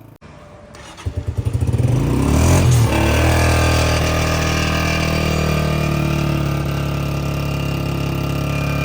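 Honda CG 125's single-cylinder four-stroke engine firing up about a second in with a rapid run of pulses, revving up briefly, then settling into a steady idle.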